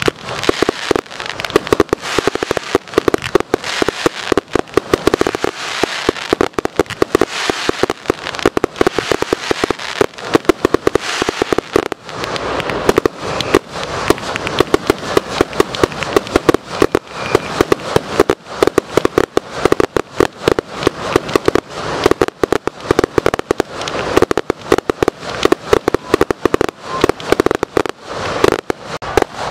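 Ground-level fireworks crackling: a fast, unbroken string of sharp pops, many each second.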